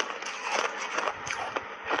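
Close-miked chewing of refrozen ice chunks: a run of crisp crunches, about three a second.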